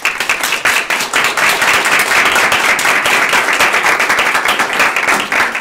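Audience applauding, a dense crowd of clapping hands that starts abruptly and thins out near the end.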